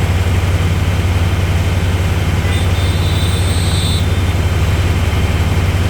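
Skid steer engine running steadily with a low, even drone, and a faint high whine about halfway through.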